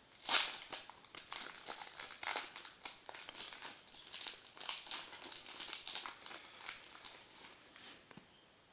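Foil trading-card pack being torn open and crinkled by hand, a run of irregular crackles that is loudest at the start and thins out near the end.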